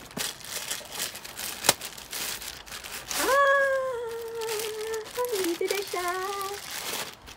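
Plastic poly mailer crinkling as a cardboard box is pulled out of it, with one sharp click about one and a half seconds in. About three seconds in, a woman's voice holds one long, slightly wavering note for about three seconds while the plastic keeps rustling.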